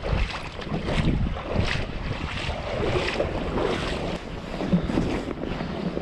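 Wind buffeting the microphone in a steady low rumble, with footsteps on a gravel path recurring a little more than once a second.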